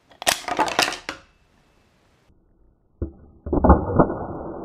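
Mousetrap-triggered prank coin bank springing apart: the trap's snap and the wooden walls clattering onto the table in a quick cluster of sharp clacks, just after the start. About three seconds in comes a duller, muffled run of knocks and rattling as the bank's wooden walls fly apart again.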